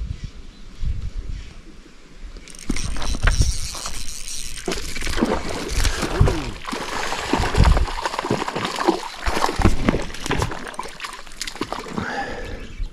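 Water splashing and sloshing at the lake surface, loud from about two and a half seconds in, as a hooked trout thrashes on the line, with low thumps of handling noise.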